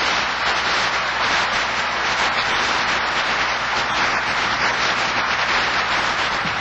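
A large audience applauding, a dense, steady clapping that is louder than the speech before it.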